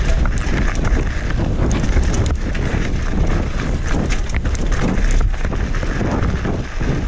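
Mountain bike descending a rough, rocky trail at speed: wind buffeting the on-board camera microphone, tyres on loose gravel and stones, and many sharp clicks and rattles from the bike over the rough ground.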